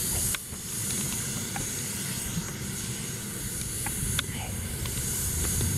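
JetCat P180 model jet turbine in an Aviation Design Diamond RC jet running steadily on the ground, most likely at idle: a high whine over a low rush, with a few faint ticks.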